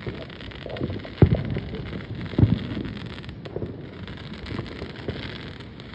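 Distant fireworks going off: several muffled low booms over a steady rumble, the loudest about a second in and again about two and a half seconds in, with wind on the microphone.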